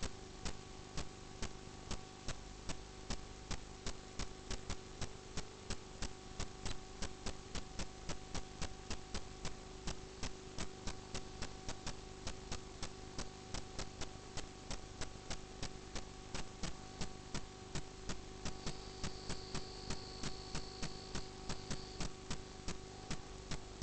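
Steady electrical hum with a regular tick about three times a second, and a faint high tone for a few seconds near the end.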